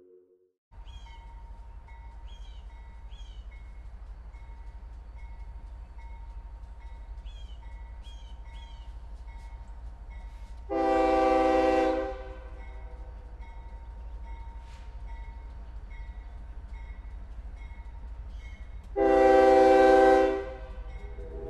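Train rumbling steadily with a light ticking about twice a second, and its horn sounding two long blasts, one about halfway through and one near the end.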